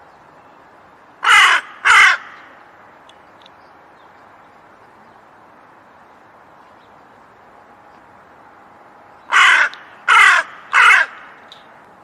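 Hooded crow cawing: two harsh caws in quick succession about a second in, then three more near the end, over a steady faint hiss.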